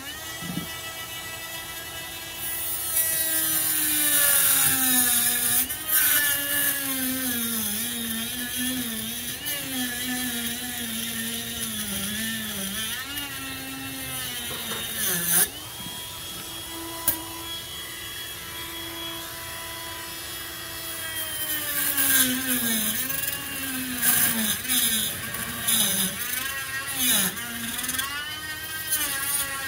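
Dremel rotary tool with a cut-off wheel running at high speed, cutting into a golf cart's plastic forward/reverse selector. Its whine dips and wavers in pitch as the disc is pressed into the cut, with a gritty hiss of cutting, and two sharp ticks midway.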